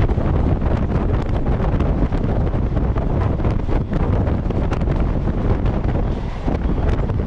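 Wind buffeting a microphone held outside a moving electric multiple-unit (EMU) local train, with the train's steady running noise underneath.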